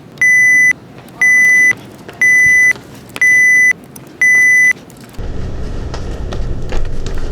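Five loud electronic beeps, one a second, each half a second long on a single high steady tone: a synthetic beep sound effect standing in for a smoke detector chirping. About five seconds in, a low rumbling noise takes over.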